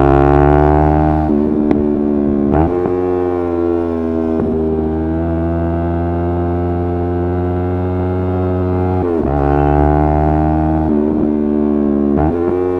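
Yamaha R3's parallel-twin engine running under way at fairly steady revs. The engine note breaks off briefly and changes pitch several times, at about a second in, two and a half seconds, four and a half, nine, eleven and twelve, as with gear changes.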